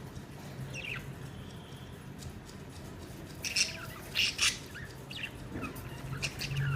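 Pet budgerigars chirping. A single short call comes about a second in, then a run of sharp, high chirps from about halfway through.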